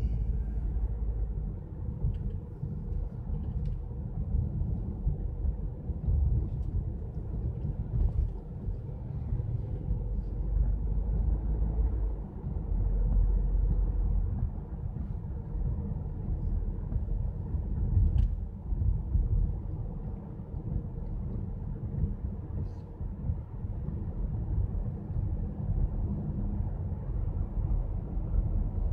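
Road and engine noise inside a moving car's cabin: a steady low rumble, with a few faint clicks now and then.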